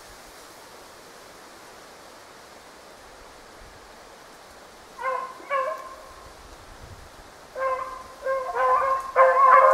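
Beagles baying on the trail of a snowshoe hare. Two short barks come about five seconds in. A run of overlapping baying then builds and is loudest near the end.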